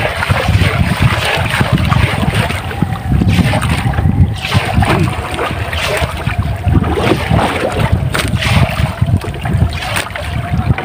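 Wind buffeting the microphone on a small fishing boat at sea, with water moving around the hull and a faint steady hum underneath.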